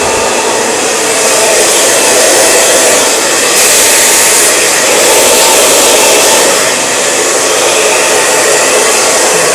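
Handheld blow dryer running steadily, blowing air through long hair as it is dried with a round brush; the airflow shifts slightly as the nozzle moves along the brush.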